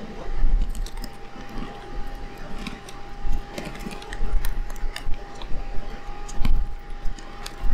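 Small metallic clicks and taps of a precision screwdriver and tiny screws as a mirrorless camera body is being unscrewed, with occasional dull knocks from handling the camera on the work surface. A faint steady whine runs underneath.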